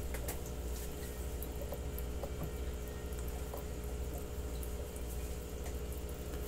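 Room tone: a steady low hum with a few faint, scattered small clicks.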